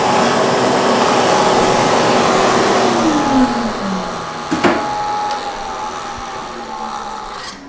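Shop vacuum running loudly with its hose at the cut, over a milling machine's end mill grinding through a solid-state drive's circuit board and chips. A tone slides down in pitch about three seconds in, and the noise eases off gradually toward the end.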